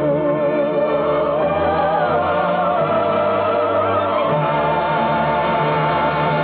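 Orchestra with singing voices: a long held note sung with vibrato, its pitch stepping up about a second and a half in, closing the song. It is heard through the narrow, muffled bandwidth of an old radio transcription.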